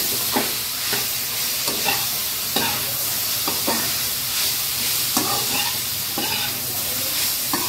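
Chopped vegetables sizzling in hot oil in a steel kadai while a spatula stirs them. The spatula scrapes against the pan in repeated, uneven strokes over a steady frying hiss, mixing in freshly added chilli powder and garam masala.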